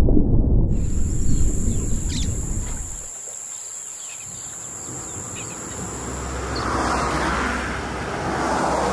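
Natural outdoor ambience: a heavy low rumble dies away over the first three seconds, leaving birds chirping over a steady high insect drone. A soft broad wash swells up near the end.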